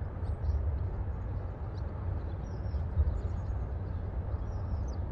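Outdoor waterside ambience: a steady low rumble, with faint high bird chirps now and then.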